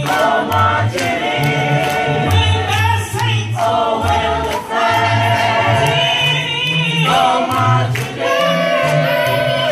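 Mixed gospel vocal group singing a cappella in harmony, with a bass line moving in low notes under the upper voices. Sharp, regular beats keep time through it.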